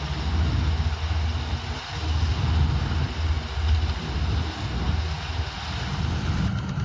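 Combine harvester running with a steady rumble and hiss while harvesting paddy, with wind buffeting the microphone in gusts.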